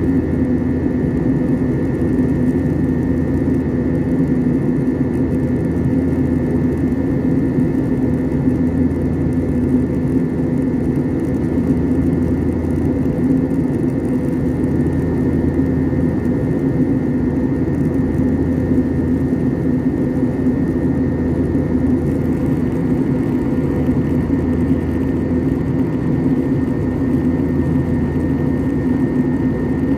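Jet airliner cabin noise in flight: a steady low rush of engines and airflow heard from inside the cabin, with a thin steady whine above it.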